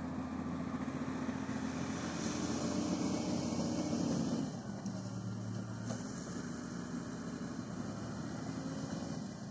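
Heavy diesel engine running steadily at a low, idle-like speed, its note dropping slightly about four and a half seconds in.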